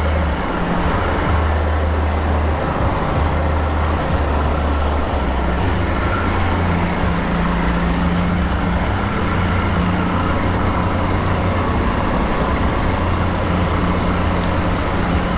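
Outboard motor running steadily as the boat trolls, a constant low hum over the rushing wash of the wake.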